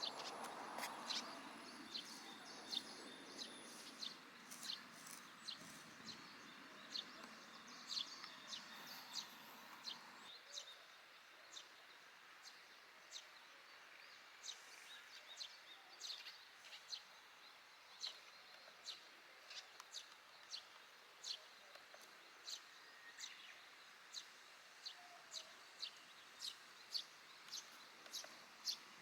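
Eurasian tree sparrow fledglings calling with a steady run of short, high chirps, about one a second: begging calls while they wait to be fed by a parent.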